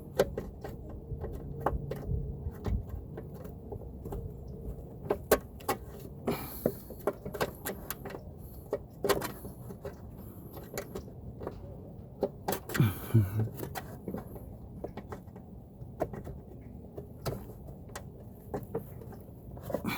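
Scattered clicks, taps and small knocks of hand work on a lawn mower's self-propel drive: tools and metal and plastic parts being handled while pins and clips are worked into place. There is a short scrape about six seconds in.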